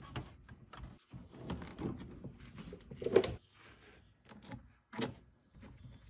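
Faint, scattered clicks, knocks and rustles of hand work: metal hardware and battery cables being handled while a battery disconnect switch bracket and terminal cable are fitted, with a few sharper clicks about three, four and a half and five seconds in.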